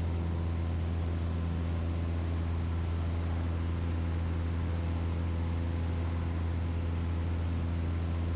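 Super Decathlon's four-cylinder Lycoming engine and propeller running steadily, heard from inside the cockpit as an even, unbroken drone with a strong low hum.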